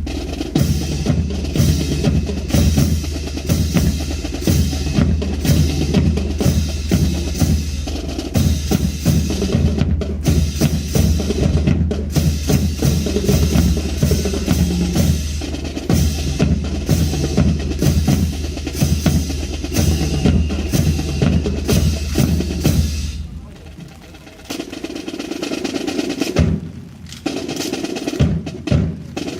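Drum line playing: rapid snare drum strokes and rolls over bass drums. About three-quarters of the way through the low drums drop out and the playing goes quieter, with short breaks.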